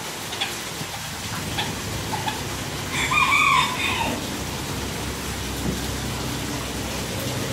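A rooster crows once, short and loud, about three seconds in, over the steady splashing of a wall fountain pouring into a pond.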